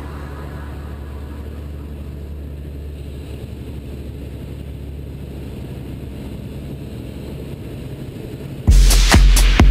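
Zlin Savage light aircraft's engine and propeller heard from inside the cockpit: a steady, even drone in level cruise. Near the end, loud electronic music with a heavy beat cuts in and drowns it.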